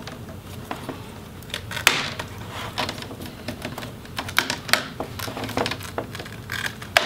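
Thin plastic laptop display bezel being pried up by fingers: irregular sharp plastic clicks and snaps as it is worked loose, with a stronger cluster about two seconds in and more around the middle.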